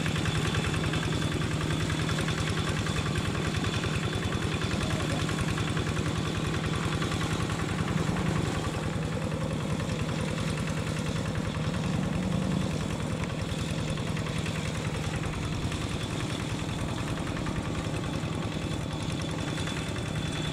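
Diesel-electric locomotive engine running with a steady low drone as the locomotive crawls along at about 10 km/h. The drone swells slightly twice, around a third and around halfway through.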